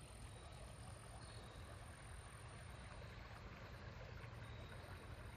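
Faint, steady outdoor ambience: an even rushing hiss with a low rumble underneath and no distinct events.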